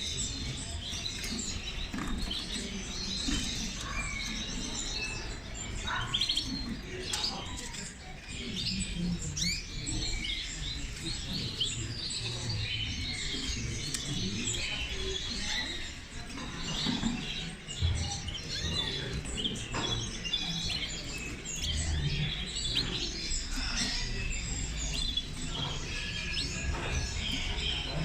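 Many caged songbirds chirping and trilling at once, a dense, continuous chatter of overlapping tweets over a low background rumble.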